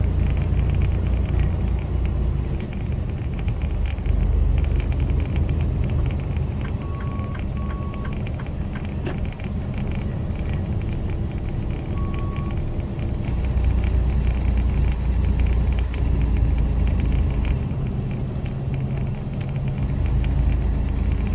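Inside the cab of a Mercedes Actros lorry on the move: a steady low rumble of the diesel engine and tyres on wet road. A few short high beeps sound near the middle.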